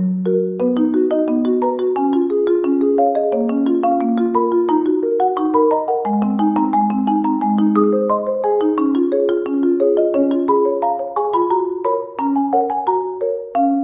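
Background music: a light tune of quick, struck mallet-percussion notes, marimba-like, several notes a second without a break.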